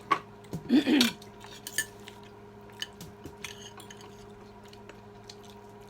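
Spoons and forks clinking and scraping against plates while eating, a few sharp clicks with the loudest cluster about a second in, then sparse light taps.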